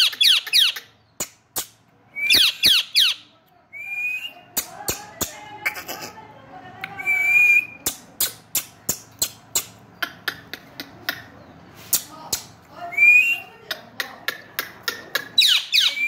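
Indian ringneck parakeet whistling: three bursts of quick falling whistles and a few shorter level whistle notes, with some lower chatter between them. Many sharp clicks run throughout.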